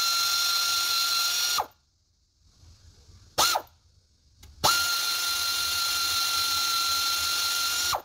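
A small cordless power tool's motor runs under the car, spinning bolts out during a water pump removal. It gives a steady high whine that winds up at each start and down at each stop. It stops about a second and a half in, gives a short blip, then runs again for over three seconds.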